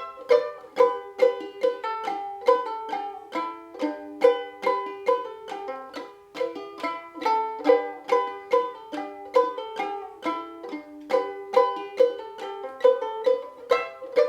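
Ukulele in standard gCEA tuning played clawhammer style: a quick, even rhythm of plucked single notes and brushed strums, with the high re-entrant G string droning among the melody notes.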